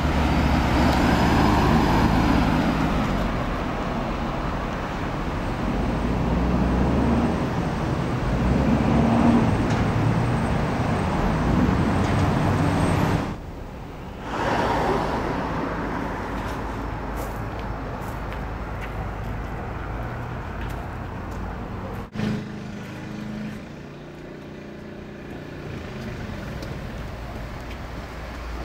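Road traffic: cars passing on a busy street, then after about thirteen seconds a quieter, steady street background, with a single sharp click about twenty-two seconds in.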